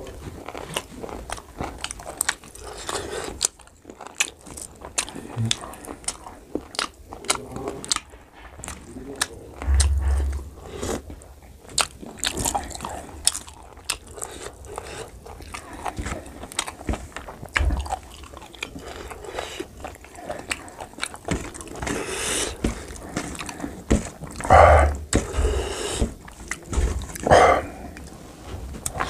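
Close-miked sounds of a man eating pork curry and rice by hand: wet chewing and many short smacking clicks, a couple of low thumps, and two brief vocal sounds near the end.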